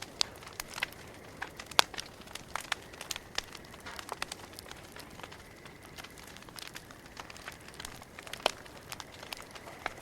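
Campfire crackling: irregular sharp pops and snaps over a soft steady hiss, with two louder snaps, one about two seconds in and one late on.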